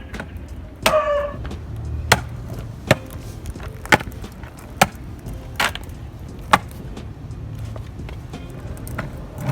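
Skateboard rolling on pavement: a low rumble from the wheels, with a sharp clack about once a second as the wheels cross sidewalk joints.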